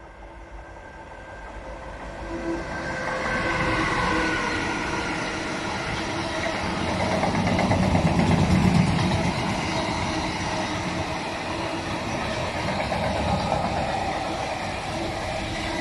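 Freight train of double-deck car-carrier wagons passing close by, the sound building over the first few seconds as it approaches, then a steady rumble and clatter of wheels on the rails. A whine falls slightly in pitch as the front of the train goes by.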